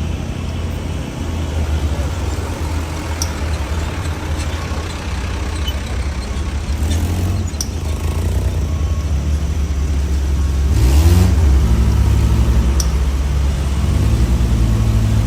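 Heavy truck engine labouring on a steep climb, with a steady low drone and a rise in revs about eleven seconds in.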